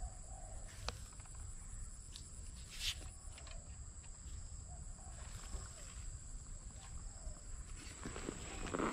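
Faint outdoor ambience: a steady high-pitched insect drone over a low rumble, with scattered faint bird calls and a few light clicks, then louder rustling in dry grass near the end.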